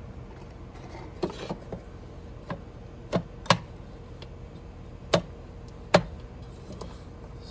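Sharp metal clicks and knocks, about six spread over several seconds, from handling the air conditioner's outdoor electrical disconnect box to cut the power.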